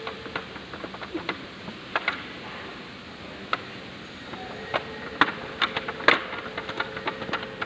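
Irregular light clicks and taps of metal lock hardware and a lever handle being handled and fitted onto an aluminium door profile, a few sharper ones about five to six seconds in.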